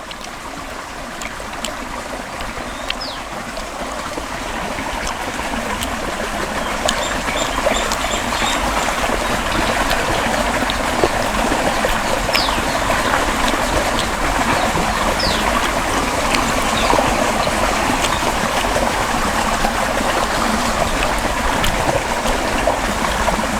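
Steady rushing noise like running water, growing louder over the first several seconds and then holding, with a few short high chirps like a bird's over it.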